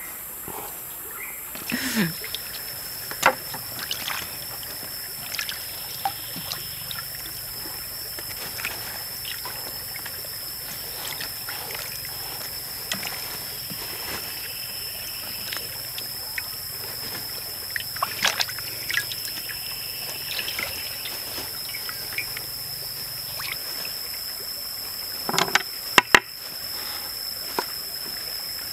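Water splashing and trickling as vegetables are rinsed and handled in a wok, with scattered clicks and knocks. A steady high-pitched tone starts a second or two in, and there is a flurry of sharper knocks near the end.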